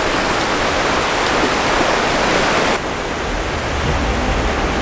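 Ocean surf breaking and washing up a sandy beach: a steady, loud rushing noise. About three seconds in it changes abruptly to a duller rush with more low rumble.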